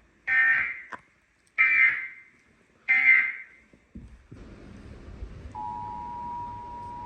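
Emergency Alert System SAME header: three short bursts of warbling digital data tones, then a steady radio hiss, then the two-tone EAS attention signal starting about five and a half seconds in as a steady dual tone. It marks the start of an EAS broadcast relayed over NOAA Weather Radio.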